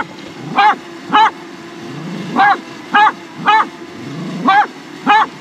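A dog barking at a small drone in short, high-pitched barks, about eight of them in uneven groups, over the steady hum of the drone's propellers hovering close by.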